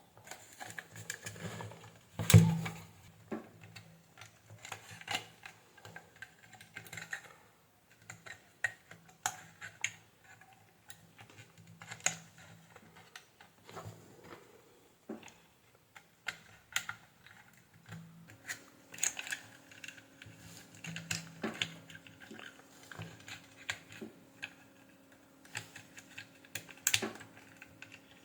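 Irregular clicks and taps of plastic parts being handled as a hair dryer's housing is put back together, with the loudest knock about two seconds in. A faint steady hum comes in about eighteen seconds in.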